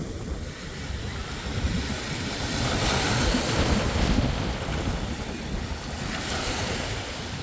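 Waves washing onto a sandy beach, with wind buffeting the microphone; one wave surges louder about three seconds in.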